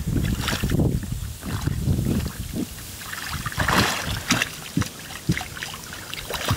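Creek water sloshing and churning around chest waders as a T-bar stake is worked into a rocky stream bed, with scattered sharp knocks. About four seconds in, a boot stamps down into the water with a big splash.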